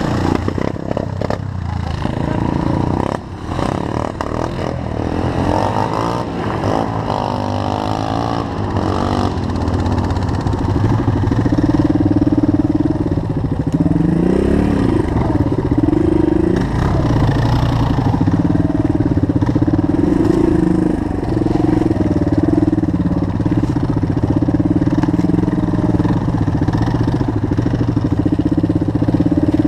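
Suzuki DR dual-sport motorcycle's single-cylinder four-stroke engine running at low trail speed, heard from the bike itself. Engines idle unevenly for the first several seconds, then from about ten seconds in a steady engine note holds, with the pitch rising and falling briefly a few seconds later as the throttle changes.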